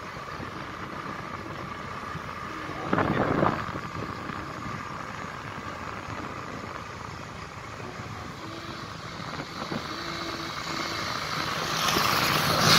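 Motorcycle on the road: steady engine and road noise, with a brief louder burst about three seconds in and a louder rush of noise building near the end.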